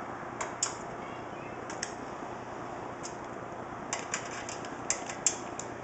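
Hand screwdriver driving the screws that fasten a power supply to the back of a steel PC case: scattered small metallic clicks and ticks, bunched about four to five seconds in, over a steady background hiss.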